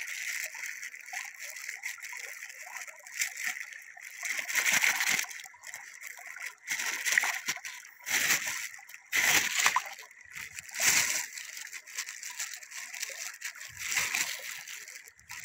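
Raw chicken in a plastic bag being sloshed and rinsed by hand in shallow river water: irregular splashes every second or two over the steady trickle of the flowing stream.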